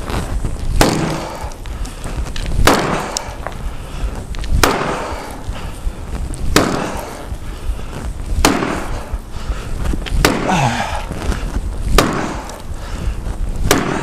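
Axe chopping into a wooden round, with eight heavy strikes about two seconds apart.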